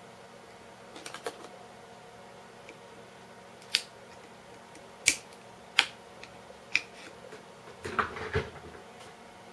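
Sharp, scattered clicks of a small screwdriver against the hard plastic shell of a USB power supply as its welded seam is pried at, with a quick cluster of knocks near the end.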